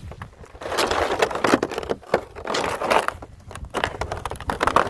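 A sled sliding over snow: uneven scraping and crunching with many short clicks and crackles, swelling and dropping in bursts.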